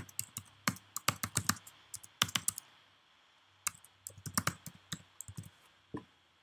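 Typing on a computer keyboard: quick runs of keystrokes, a pause of about a second midway, then another run.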